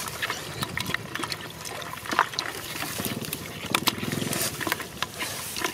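Hands digging in wet mud and grass, squelching, with scattered short wet clicks and small splashes.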